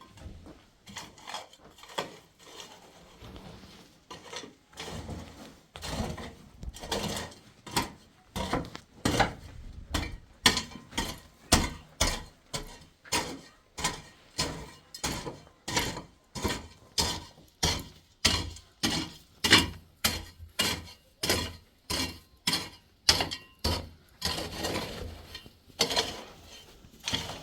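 A hand tool striking over and over, a few scattered blows at first, then a steady beat of about two blows a second that stops near the end.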